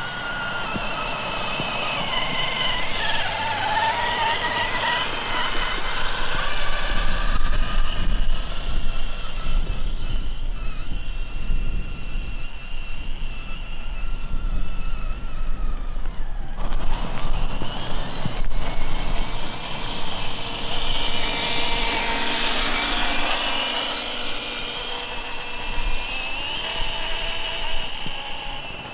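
Electric drivetrain of a Traxxas TRX-4 Sport RC crawler, a HobbyWing XeRun sensored brushless motor and gearbox, whining as it drives, the pitch rising and falling with the throttle. A low rumble runs underneath.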